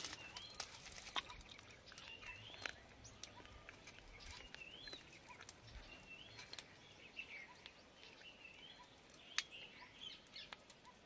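Faint outdoor birdsong: short chirping calls that slide up and down, repeated irregularly, with scattered sharp clicks and one louder click near the end.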